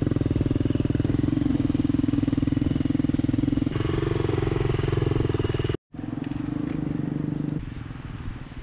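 An engine running steadily close by, with a fast even pulse. The sound changes abruptly twice and cuts out completely for a moment about six seconds in.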